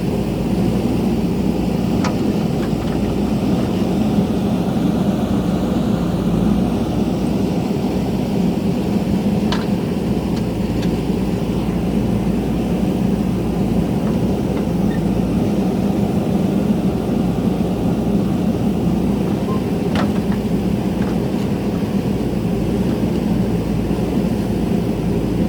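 JCB backhoe loader's diesel engine running steadily while at work, with three brief sharp knocks along the way.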